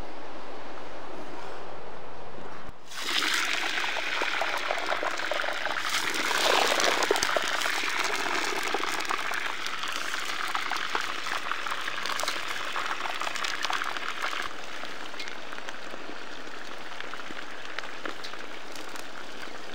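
A steady rushing noise that cuts off about three seconds in, then the crackling, bubbling hiss of food cooking in a pot over a fire. The hiss swells for a couple of seconds around the middle, then settles into a steadier, softer sizzle.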